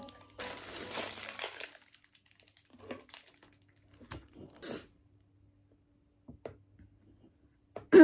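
Paper wrapper crinkling sharply for about a second as a hotteok is handled, then a few faint rustles and light clicks.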